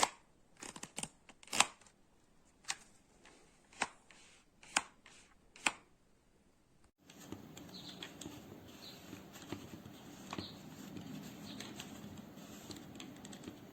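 A string of separate sharp clicks and knocks, like things being handled. About seven seconds in, the background changes suddenly to a steady low hum and hiss with faint soft rustling.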